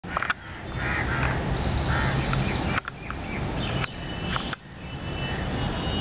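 Crows cawing several times over a steady low rumble, with a thin high whistle held briefly now and then and a few sharp clicks.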